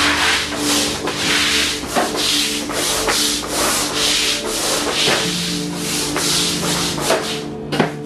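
Numatic Henry Wash wet vacuum's floor tool pushed back and forth over a wet floor, sucking up water: a rasping swish about twice a second.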